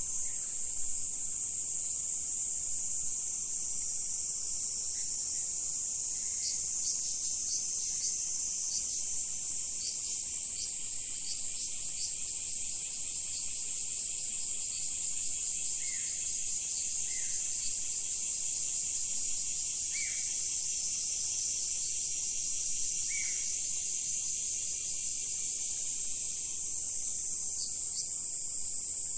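Steady high-pitched drone of a chorus of insects, with scattered short high chirps in the first half and a few brief falling calls later on.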